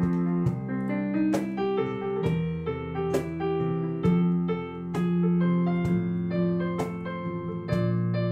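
Piano music: a keyboard plays chords and melody notes in an instrumental passage of a worship song, each note struck and then held.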